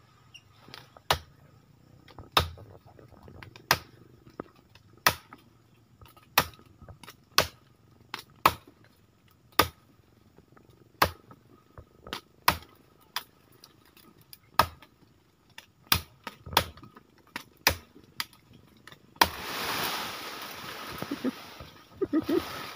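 Machete chopping into the trunk of a young durian tree to top it: sharp, evenly spaced blows, roughly one every second and a bit. Near the end, a few seconds of rustling from leaves and branches.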